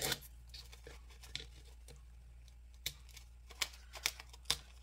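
A nail file scrapes once along the edge of a small wooden birdhouse, cutting away the overhanging decoupage napkin, followed by a few faint light taps and paper rustles.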